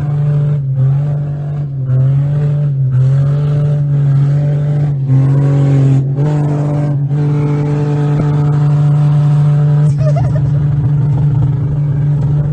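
2007 Pontiac Grand Prix engine held at high revs: a loud, steady drone with a few brief dips in pitch in the first three seconds. The engine is being deliberately over-revved to destroy it.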